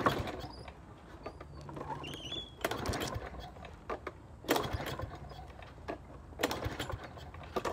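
Walk-behind lawnmower being pull-started: about four short rattling cranks of the recoil starter, roughly two seconds apart, and the engine does not catch.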